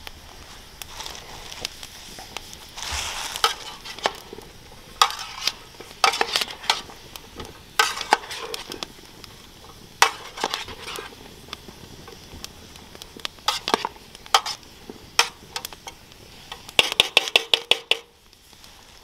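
A spoon stirring chopped vegetables and mushrooms in a stainless steel pot, with irregular clinks and scrapes against the pot and a quick run of clinks near the end. The vegetables sizzle faintly as they cook.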